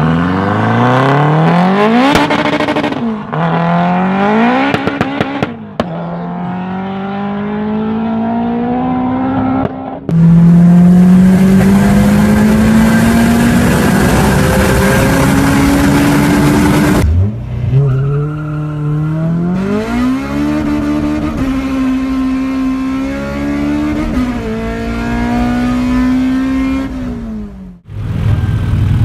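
Honda VTEC four-cylinder engines at full throttle in several cut-together clips, the engine note rising through each gear and dropping at every shift, with one long pull of several seconds in a high gear. Near the end it cuts to a turbocharged engine running steadily at low revs.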